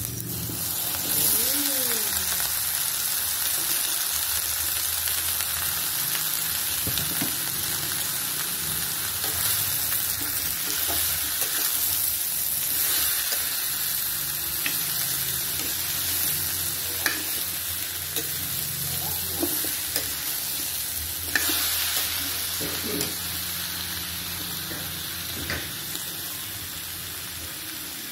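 Food frying in hot oil in a pan, a steady sizzle as it is stirred, with a few sharp knocks of a utensil against the pan.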